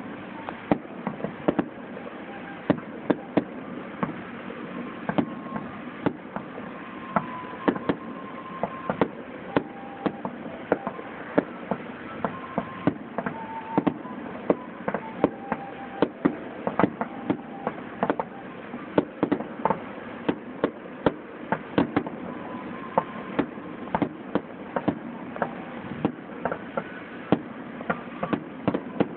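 Fireworks grand finale: aerial shells bursting in a rapid, unbroken barrage, several sharp bangs a second over a constant background din.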